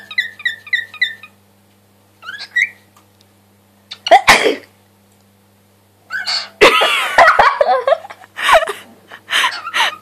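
Cockatiel chirping in a quick run of short whistled notes, then a sharp loud sneeze about four seconds in: a sneeze the bird has learnt to mimic. From about six seconds on comes a longer, louder stretch of wavering calls and further short sneeze-like bursts.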